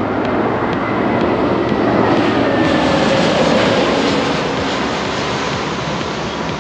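Jet airliner's engines passing close by: a loud rush that swells to a peak a couple of seconds in, with a whine falling in pitch, then eases off.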